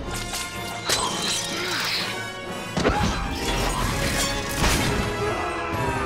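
Dramatic orchestral film score with heavy crashing impacts, one about a second in and a bigger one near three seconds.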